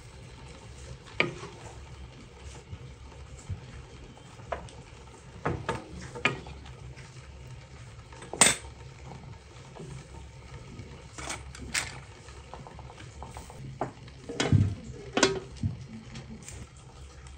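A wooden spatula stirs lamb and vegetables in a large stone-coated pan, with scattered scrapes and knocks against the pan and one sharp knock about halfway through. Near the end comes a cluster of louder metal clatters as an aluminium lid is put on the pan.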